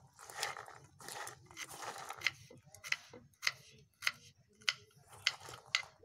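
Hand mixing boiled chickpeas and chopped vegetables in a steel bowl: a wet rustling, crunching shuffle of the chana. From about two seconds in there is a sharp click close to twice a second with each stroke of the hand.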